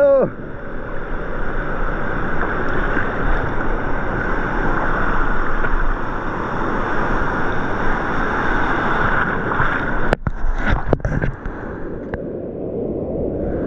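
Waves washing around rocks, mixed with wind buffeting the microphone. A few brief knocks and short dropouts about ten seconds in.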